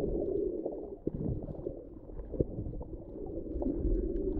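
A snorkeler's breathing through a snorkel with no mouthpiece, heard muffled underwater and sounding weird: a low rushing that swells at the start and again near the end, with two sharp clicks in between.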